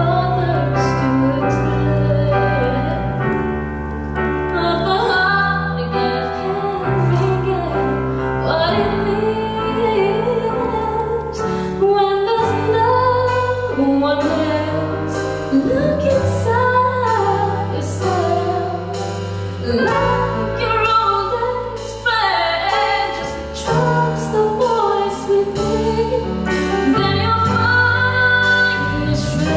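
A woman singing live with a band: her voice slides and wavers over keyboard chords and held bass notes, with short percussive ticks throughout.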